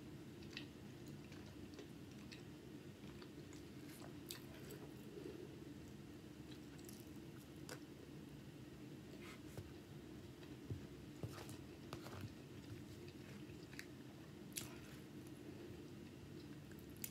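Faint close-miked chewing of seasoned rice and barbecue chicken, with scattered small clicks and mouth sounds, over a steady low hum.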